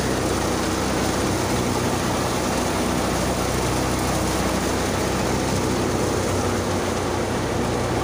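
Tractor-driven wheat thresher running steadily as wheat sheaves are fed in: the tractor's diesel engine hums low and even under the threshing drum's continuous rushing noise.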